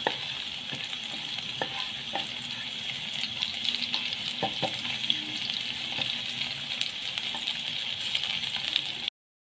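Chopped garlic, cumin seeds and black peppercorns sizzling in a little oil in a pan, stirred with a wooden spatula that scrapes and taps the pan now and then. The steady sizzle cuts off suddenly near the end.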